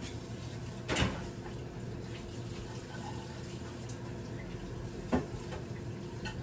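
Kitchen tap running into a sink, with two short clunks about a second in and about five seconds in.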